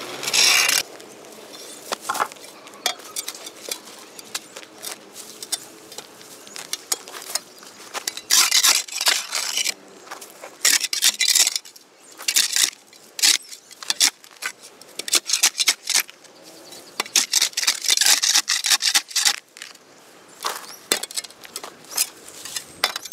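Steel spade blade chopping and scraping through turf, roots and soil, in irregular bursts of scrapes and clicks, with rustling as clumps of grass are pulled out by hand.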